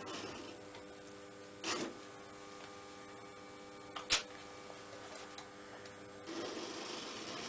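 HO-scale model train layout: the running noise dies away and a steady electrical hum remains, broken by two sharp clicks, one near the start and a louder one a little more than halfway through. Near the end the rattling run of a model train on its track starts up again.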